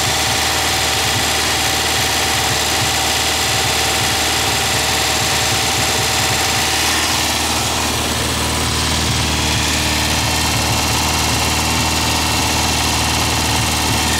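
Air-cooled VW flat-four, a 2110 cc stroker built on a 1600 case, running steadily under its own power during the break-in run for its new camshaft.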